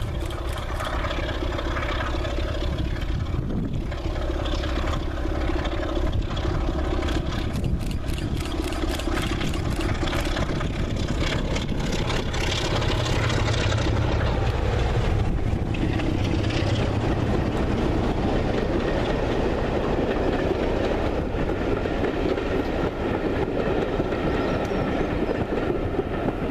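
A pair of Class 33 diesel locomotives running past under power with a steady engine drone, followed by a long rake of coaches rolling by, their wheels rumbling and clattering on the rails.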